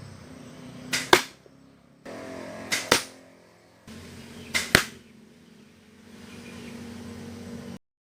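Pistol crossbow (85 lb draw) shot three times, each a sharp double crack a fraction of a second apart, with quieter background between them.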